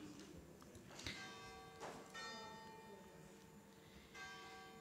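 Faint church bells ringing: a new strike about every second, each leaving several lingering tones, over quiet room tone.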